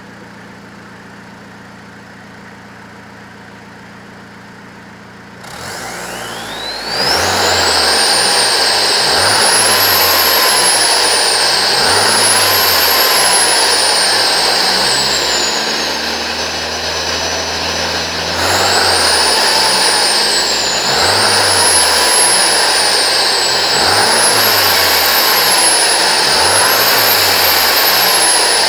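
Turbocharged engine idling quietly, then revved again and again. The turbo gives a high whistle that climbs sharply at the first rev and then rises and falls with each rev, dipping and holding steady for a moment midway.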